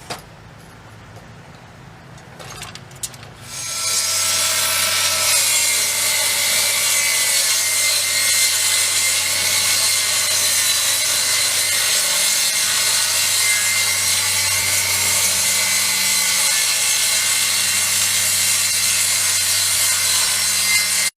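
10-inch General International TS4004 job site table saw starting about four seconds in, after a few faint clicks, then running steadily as it rips a board.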